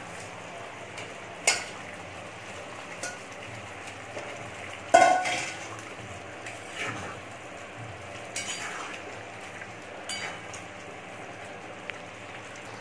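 Metal spatula knocking and scraping against a metal kadhai while fried fish pieces are turned in simmering curry gravy, over a steady low sizzle. There are several clinks a few seconds apart; the loudest, about five seconds in, rings briefly.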